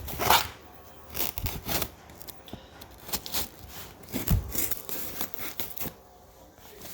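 Cardboard box being opened by hand: tape tearing and cardboard scraping and rustling, with a few soft knocks.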